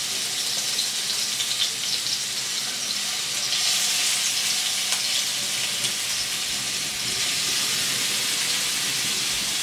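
Marinated chicken shashlik skewers of chicken, capsicum and onion frying in hot oil in a frying pan: a steady sizzle with small crackles, as more skewers are laid into the hot oil.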